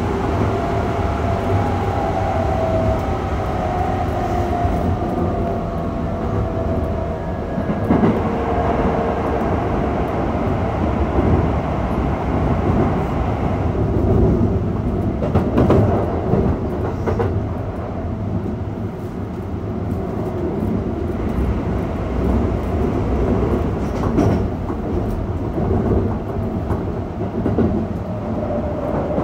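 Running noise inside a Keikyu 600 series electric train car with Mitsubishi GTO-VVVF traction equipment. A whine of several tones falls in pitch over the first several seconds, under a steady rumble of wheels on rail. A few knocks from rail joints come now and then.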